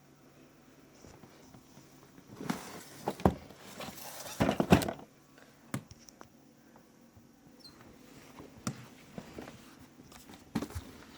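Irregular sharp knocking and cracking, like a small hammer tapping on laminate from underneath: a tight cluster of cracks mixed with rustling a few seconds in, then single knocks a second or two apart. The cause is unexplained; the recorder is sure it is not the neighbours and that it comes from the corner of the room.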